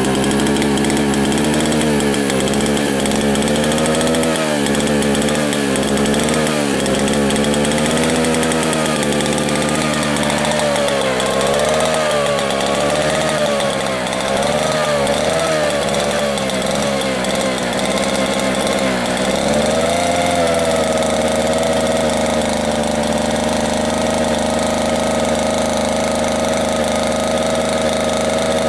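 A Mall 8 two-man chainsaw's engine running without cutting. Its speed wavers up and down for about the first twenty seconds, then settles to a steady, even note.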